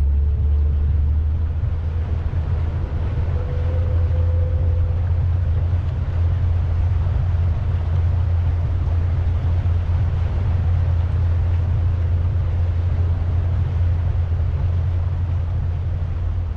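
A pontoon boat's motor running with a steady low rumble, with an even hiss of water and wind over it.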